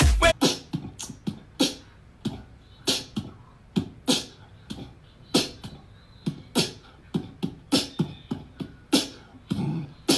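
Beatboxing: a person's mouth percussion of sharp clicks and low thumps, unevenly spaced at about one to two a second.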